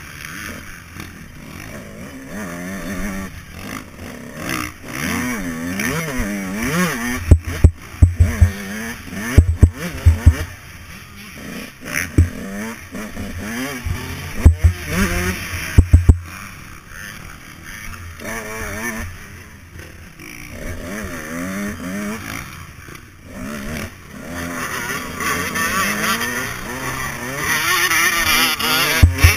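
Dirt bike engine ridden hard, its revs rising and falling again and again through the corners and straights. Repeated sharp, loud thumps and wind buffeting on the microphone cut through it.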